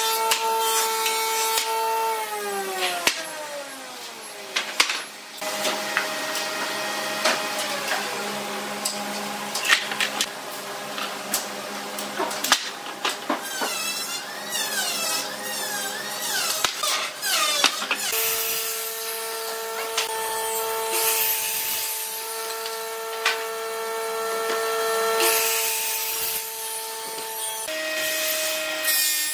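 Woodshop sounds: woodworking machinery runs with a steady whine whose pitch shifts several times, while rough wooden pallet boards are knocked and scraped as they are handled.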